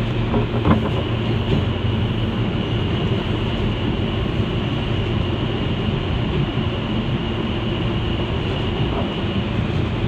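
New York City subway train running through a tunnel: a steady rumble of wheels on rail, with a few sharp clicks about half a second in. A faint high steady whine runs through most of it and fades out near the end.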